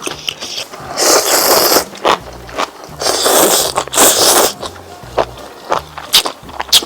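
Close-miked chewing of beef tripe: three loud crunching bites, a couple of sharp clicks near the end, over soft background music.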